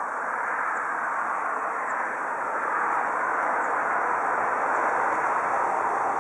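Steady rushing road noise of a passing vehicle, swelling gradually over several seconds.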